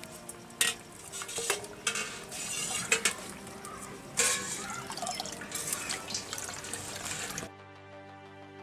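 Prawn and drumstick curry bubbling in an aluminium kadai, with sharp clinks of aluminium bowl and spoon, over background music. Near the end the cooking sounds stop and only the music goes on.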